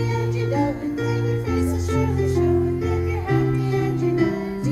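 Instrumental music: held chords over a bass note that changes about once a second.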